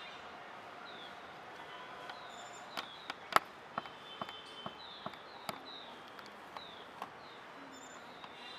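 Outdoor wooded ambience with birds giving repeated short, high, falling chirps, mixed with scattered sharp clicks; the loudest click comes a little over three seconds in.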